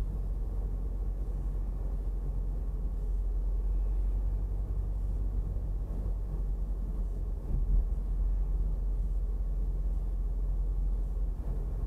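Steady low rumble of a car in motion, with a brief bump about two-thirds of the way through.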